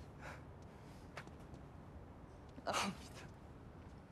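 A man's distressed breathing over a quiet background: one loud, sharp breathy exhale about two-thirds of the way in, ending in a short falling cry of the voice.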